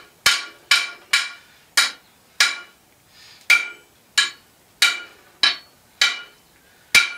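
Blacksmith's hand hammer striking a hot iron nail on the anvil, forging its head. The blows ring and come steadily, about one every half second to two-thirds of a second, with a short pause a little before halfway.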